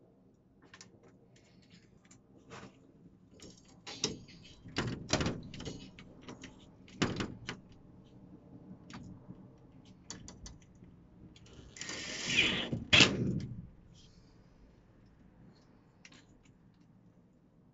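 Handling noise from fitting a metal autovent opener bracket to a wooden batten on a greenhouse window: scattered clicks and knocks, a cluster of sharper knocks around the middle, and one louder, rougher noise lasting about a second and a half about two-thirds of the way through.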